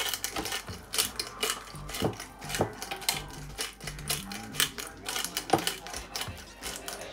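A small jar of black pepper shaken over a plastic bowl of raw chicken, giving quick, irregular rattling clicks.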